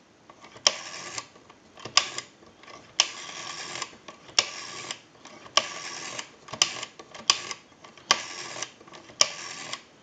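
Automatic Electric AE40 rotary dial being dialed: about eight digits, one every second or so, each a sharp click followed by the dial running back to rest.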